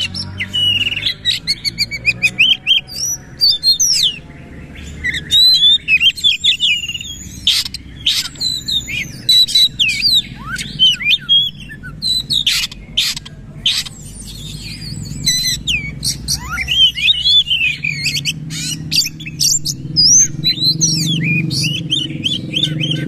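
Oriental magpie-robin singing a loud, fast, varied song of quick whistled notes that sweep up and down, broken by sharp harsh notes, in rapid bursts with short pauses. This is the fast, forceful singing that kacer keepers call 'nembak'.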